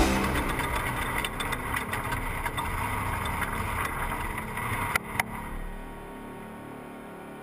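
Off-road trophy truck's engine running, heard from inside the cab, fading down over several seconds. Two sharp clicks come about five seconds in, after which it is quieter.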